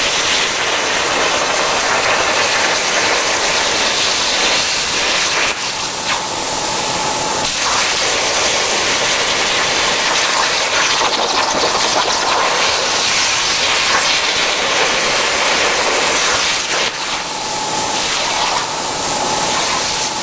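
Torch of a Steel Tailor portable CNC cutting machine cutting through steel plate: a loud steady hiss of the cutting jet. A faint whine comes in twice.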